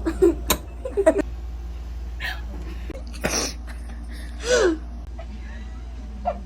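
Short non-word vocal sounds, gasp- or squeal-like, with one curving up and down in pitch about four and a half seconds in. A few sharp clicks come in the first second or so, over a steady low hum.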